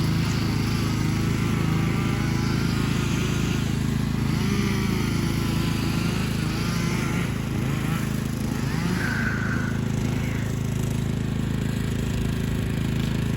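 A vehicle engine running steadily, its pitch rising briefly about two-thirds of the way through.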